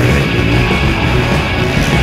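Loud rock music with a steady, dense sound.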